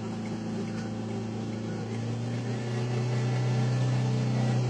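Road vehicle's engine running steadily as it drives, a low hum that grows a little louder about three seconds in.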